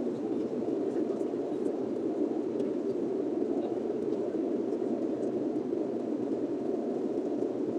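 Steady cabin noise of a jet airliner in flight, heard from inside the passenger cabin: an even, low rushing hum that does not change.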